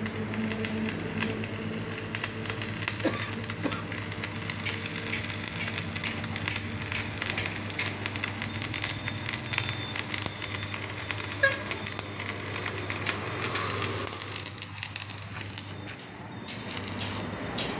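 Electric arc welding on a steel plough frame: the arc crackles and sputters steadily over a low steady hum.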